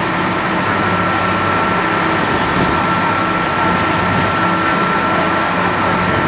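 A boat's engine running steadily while under way, heard from on board. Its steady low hum and a constant high whine sit over an even rush of noise.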